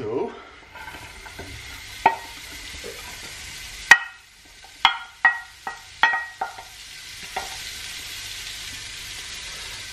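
Cut green beans sizzling as they are tipped into a hot frying pan with a little margarine, with sharp knocks from the wooden spatulas and serving tray against the pan while the beans are pushed in and tossed. The frying settles into a steady sizzle near the end.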